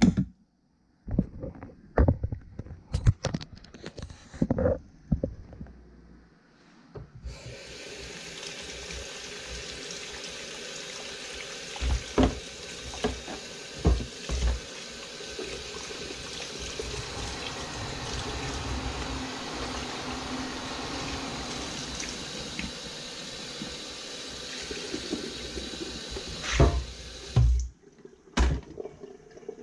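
A kitchen tap runs steadily into the sink for about twenty seconds, starting about seven seconds in and stopping near the end, as raw mullet pieces are rinsed under it. Sharp knocks and clatter of utensils and a plastic colander come before the water starts, a few more during it, and again after it stops.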